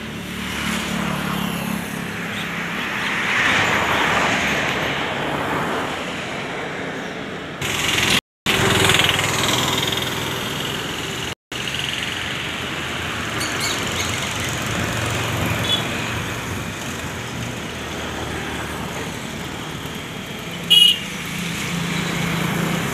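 Road traffic passing steadily, vehicles swelling and fading as they go by, with a short horn toot near the end. The sound cuts out briefly twice.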